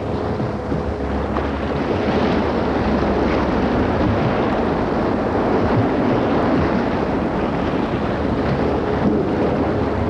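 Loud, steady rushing of churning water, swelling up in the first second and then holding even.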